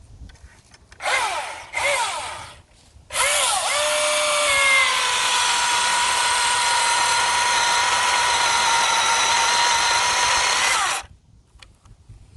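Milwaukee M18 FUEL 16-inch cordless chainsaw's brushless electric motor: two short trigger blips that spin up in pitch, then a steady high whine of about eight seconds, its pitch dropping slightly soon after it starts, as the chain cuts into the tree trunk, before it cuts off suddenly.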